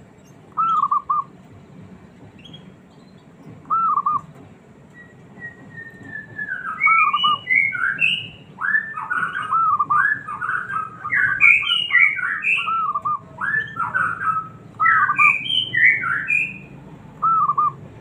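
Zebra dove (perkutut) cooing: short trilled coos about a second in and again at about four seconds. From about five seconds to sixteen seconds there is a long run of rapid, overlapping coos at several pitches, and one more short trill comes near the end.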